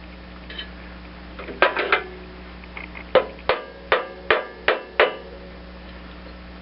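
Metal knocking on a mower engine's stuck carburetor: a short rattle of clicks, then six sharp knocks about a third of a second apart, each ringing briefly.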